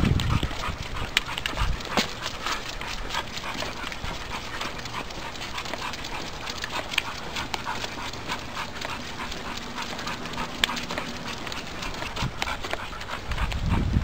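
Dogs panting as they walk on leashes, with a scatter of small clicks throughout.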